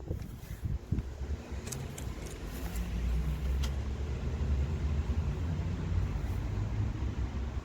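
Car engine running steadily with a low rumble, with a few light clicks in the first half.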